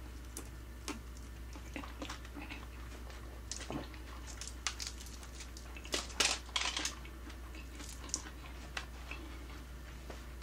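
Close-miked eating sounds of quail being picked apart by hand and chewed: scattered wet clicks, smacks and small crunches, with a louder cluster about six seconds in.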